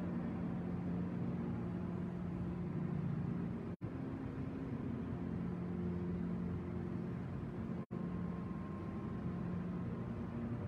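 Steady low drone of room tone with faint held tones that shift every few seconds, cut by brief total dropouts about every four seconds.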